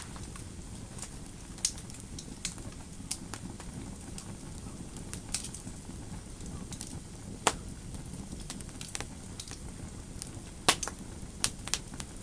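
Fire in a fireplace crackling: irregular sharp snaps and pops over a low, steady rumble, with the loudest pops about halfway through and near the end.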